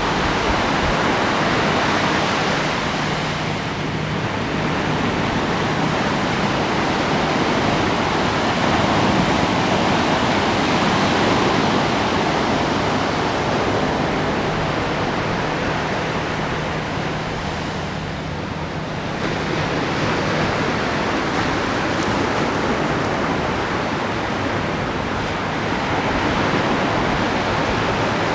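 Ocean waves breaking on a beach: a continuous rush of surf that swells and eases, thinning briefly about four seconds in and again about eighteen seconds in.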